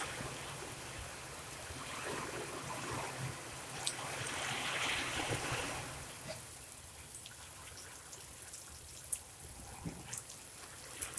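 Rain falling with water trickling and splashing, and a few sharp drips standing out.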